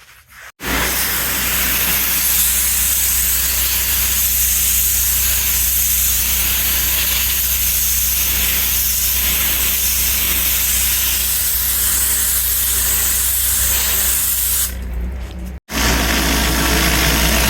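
Pressure washer jet spraying on greasy concrete, a loud steady hiss over the low, even hum of the machine's engine, rinsing off degreaser and lifted grease. The spray drops off for about a second near the end, then comes back.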